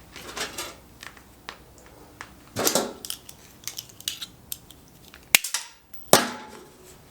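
Scattered light clicks and metallic knocks from TIG welding gear and metal pieces being handled, with one sharp snap a little over five seconds in.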